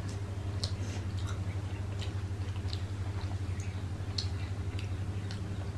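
People chewing rice and mutton curry eaten by hand, with short wet mouth smacks and clicks at irregular moments. A steady low hum runs underneath.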